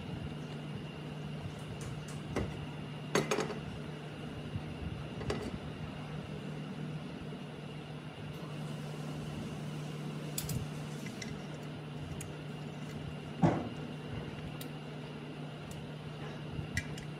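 A few sharp clicks and knocks of hard parts being handled, the loudest about three-quarters of the way through, over a steady low hum.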